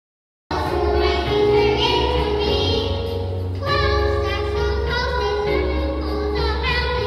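A group of young children singing together into microphones, starting suddenly about half a second in.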